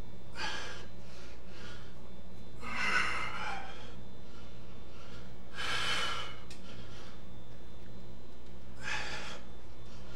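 A bench-presser's forceful breaths, four of them about three seconds apart, as he presses a 135 lb barbell in his opening set, over a steady low hum.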